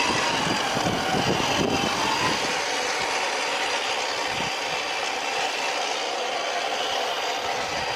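Electric motor and geared drivetrain of a radio-controlled scale Land Rover Discovery off-roader, running steadily with a faint whine. A rougher low rumble sits under it for the first three seconds or so.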